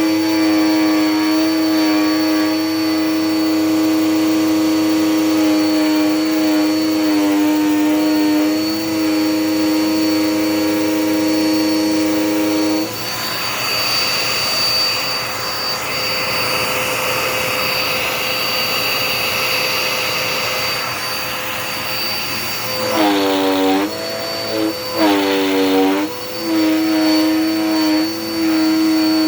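Dirt Devil Power Max upright vacuum running with a steady motor whine while its hose is squeezed and worked to free a piece of paper clogged inside. About 13 seconds in, the whine gives way to a rushing air sound. Later the pitch dips twice before the steady whine returns.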